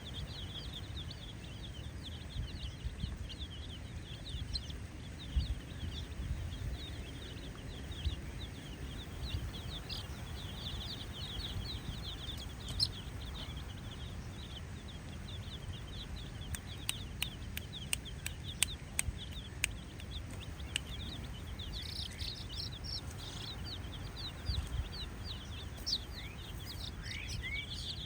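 A flock of baby chicks peeping continuously, many short high peeps overlapping, over a steady low rumble. A quick run of sharp clicks comes in the middle.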